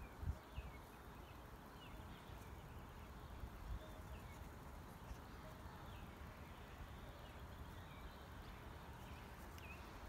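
Faint outdoor birdsong: short downward-sliding chirps repeating about once a second, over a low wind-like rumble with a couple of soft thumps.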